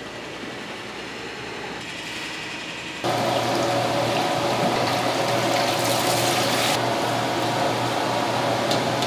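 Tap water running into a steel pot of rice as a hand swishes and rinses the grains, starting suddenly about three seconds in; before that, a quieter steady hum.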